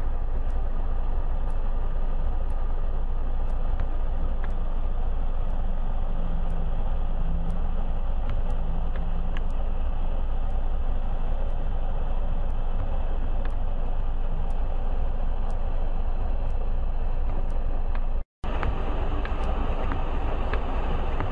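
Engine of a trials-prepared Land Rover working as it climbs a muddy sand bank, under a steady low rumble. The sound breaks off for an instant near the end.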